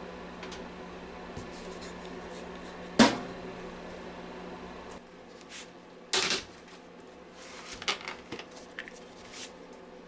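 A sharp knock about three seconds in, a clatter of hard objects about six seconds in, then several light clicks and taps; a low steady hum underneath stops about five seconds in.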